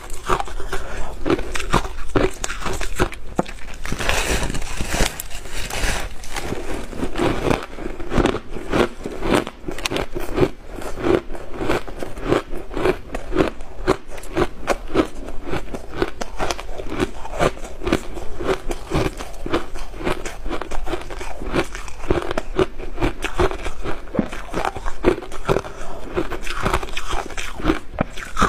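A slab of refrozen shaved ice being bitten and chewed: a dense, rapid run of crisp cracks and crunches.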